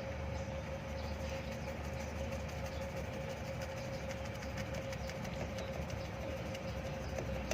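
Toyota Kijang LSX's 1800 cc petrol engine idling steadily: an even low hum with a thin, steady whine above it.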